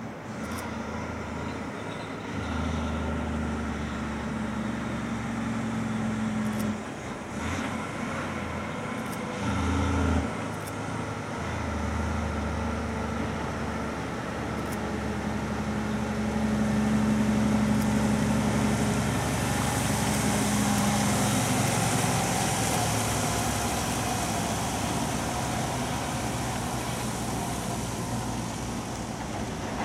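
Loaded off-highway logging truck's diesel engine pulling up the road as it approaches, its note stepping up and down a few times in the first dozen seconds. The truck then passes close by, and the hiss of its tyres on the wet road swells and is loudest around two-thirds of the way through.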